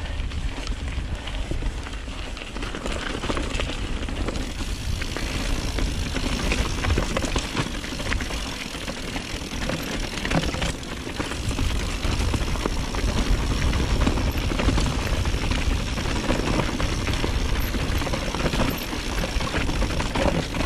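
Mountain bike riding over a rough trail: a steady low rumble of wind on the microphone, tyre noise, and frequent sharp rattles and knocks from the bike.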